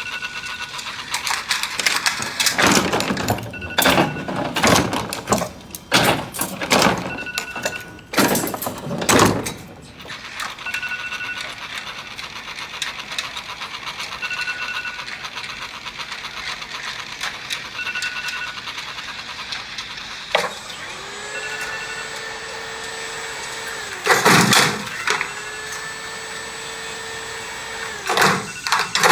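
Phone alarm beeping: a short high beep about every three and a half seconds. Loud rustling and knocking bursts in the first ten seconds, and two long held tones that bend at their ends in the second half.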